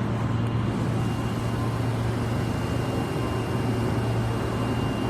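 Steady low hum and rumble of an Osaka Metro Tanimachi Line subway train, with no horn sounding yet.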